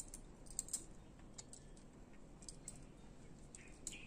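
Light, irregular metal clicks and ticks from a bike multi-tool's hex key working the hinge-clamp bolt on a folding bike's handlepost, with the tool's folded keys clinking together.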